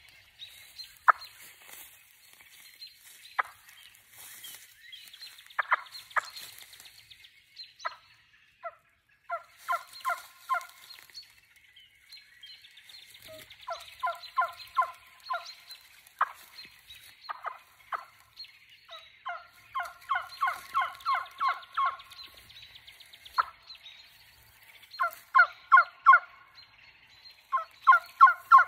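Trumpet-style turkey call with cane-yelper internals, blown by mouth to imitate hen turkey yelps: a few single notes at first, then runs of several yelps in quick succession that grow louder and more frequent toward the end.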